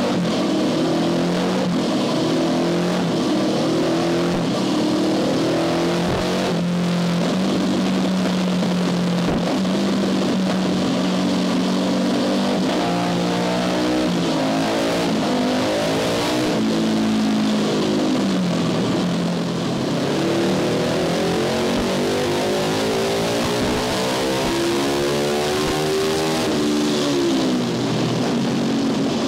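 Tuned Honda CB500 parallel-twin engine running hard on a rolling-road dyno: first held at steady revs, then revved in rising sweeps, the last one climbing for several seconds before falling away sharply near the end. These are dyno power runs.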